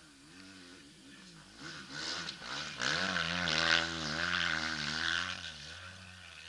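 An engine running nearby, swelling in level about two seconds in and fading near the end, its pitch wavering slightly.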